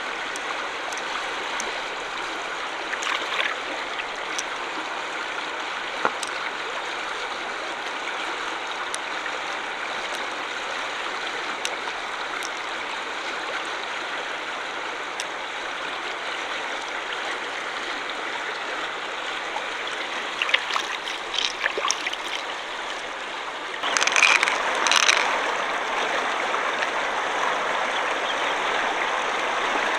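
Steady rush of shallow running stream water, with a few faint clicks and two louder short bursts near the end.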